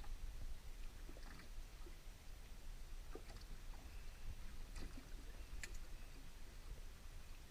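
Water lapping against a small aluminium boat's hull, over a low steady wind rumble, with scattered faint light clicks and taps.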